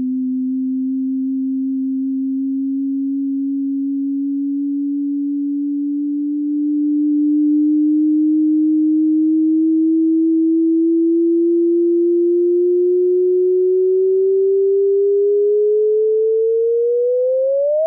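Data sonification of a neutron star merger: a single pure tone that rises slowly and steadily in pitch, then sweeps up sharply in the last second, a chirp that tracks the two stars' final inspiral toward merger.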